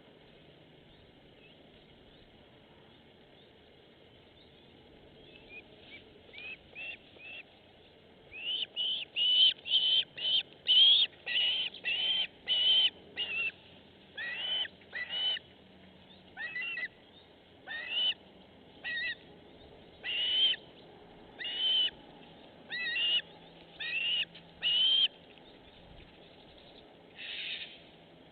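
A bird calling repeatedly in short, sharp notes, about one or two a second. The calls start faint a few seconds in, are loudest in the middle, and a last fainter call comes near the end.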